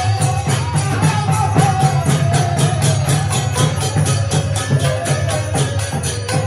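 Kirtan music: harmoniums holding sustained chords over a mridanga drum, with karatal hand cymbals clashing on a fast, even beat.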